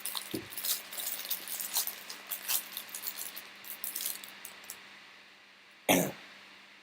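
Crinkling and crackling as a trading-card pack wrapper and cards are handled, many small crackles for about four and a half seconds, then a single thump near the end.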